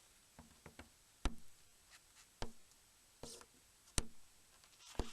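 Sharp little clicks and knocks of a Nokia E65 slider phone's plastic housing being handled and shifted, about eight in all, with a brief scrape a little past three seconds in.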